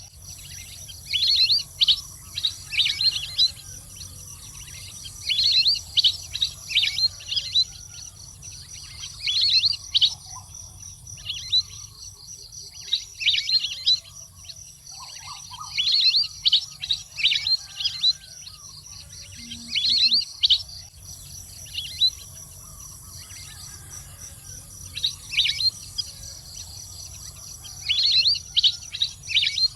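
Waterbird calling in repeated bursts of quick, high chirping notes, a cluster every few seconds, over a steady thin high-pitched hum.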